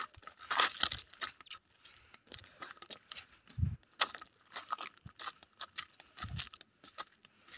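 Footsteps crunching on a loose, stony dirt path: irregular crunches and small stone clicks, with a couple of dull thumps partway through.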